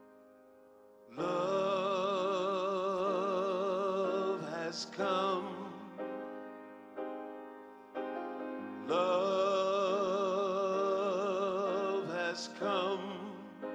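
Slow live band music: a grand piano's sustained chords under two long held notes with a wide vibrato, each lasting about three seconds, the first coming in about a second in.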